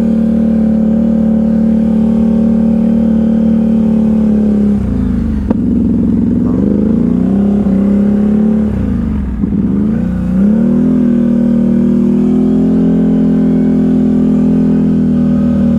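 ATV engine running under way at a steady, high pitch. From about five to ten seconds in, the revs drop and pick up again several times as the throttle is eased and reapplied, then hold steady again.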